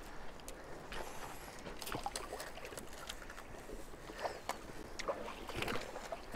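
Faint water sloshing at a river's edge with scattered small clicks and crackles of thin skim ice being pushed and breaking.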